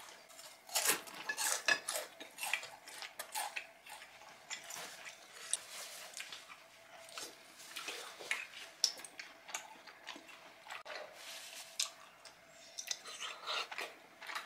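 Chopsticks and spoons clicking and tapping against bowls and plates during a meal, a string of light irregular clinks.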